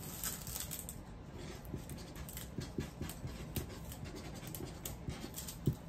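A Maltipoo puppy panting quietly, with faint scattered clicks.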